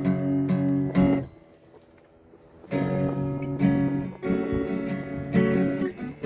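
Guitar strummed in chords; the playing stops a little over a second in and picks up again about a second and a half later.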